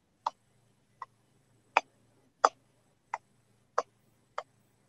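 Chef's knife slicing a chili on a wooden cutting board: seven short, sharp knocks of the blade on the board, evenly spaced about once every 0.7 seconds.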